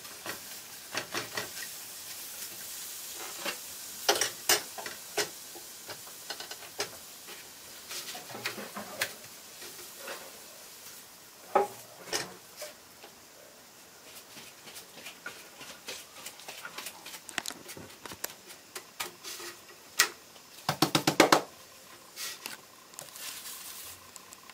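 Corn tortillas cooking on a comal over a gas burner: a faint steady sizzle with scattered taps and clicks as the tortillas are handled, laid down and turned by hand. A quick flurry of taps comes a little past the three-quarter mark.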